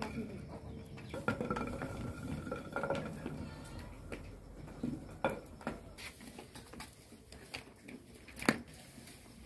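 Scattered clinks and knocks of metal pots and steel bowls being handled, with one sharp knock near the end.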